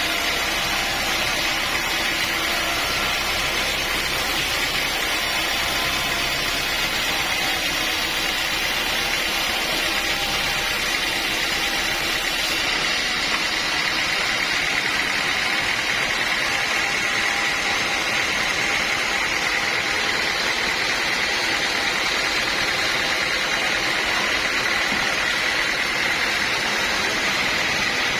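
Sawmill saw running steadily through a teak log, a continuous mechanical noise with a steady high whine.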